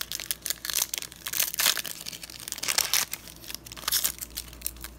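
Crinkly foil wrapper of a Pokémon trading card booster pack rustling and crackling in the hands, in dense irregular crackles.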